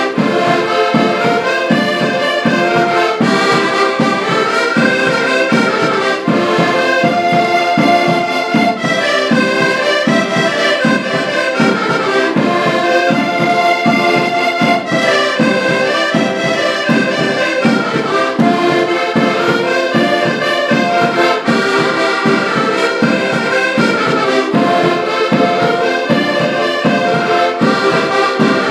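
Several accordions playing a tune together, the melody over a steady bass-and-chord beat.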